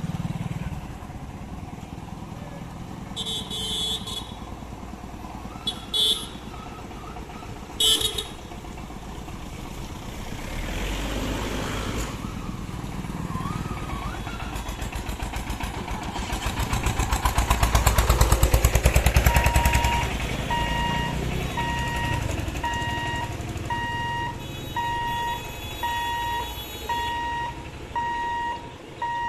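Road traffic crossing a railway level crossing: motorcycles and other vehicles passing, with short horn toots a few times in the first eight seconds and one vehicle's engine passing close and loudest about 18 s in. From about 20 s in, the crossing's electronic warning beeper sounds steadily, about one and a half beeps a second, as the boom barriers close for an approaching train.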